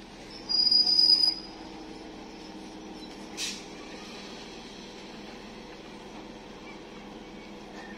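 Electric multiple-unit local train stopping at a platform: its wheels or brakes squeal loudly and high for about a second near the start, a short hiss comes a few seconds in, and then the standing train hums steadily.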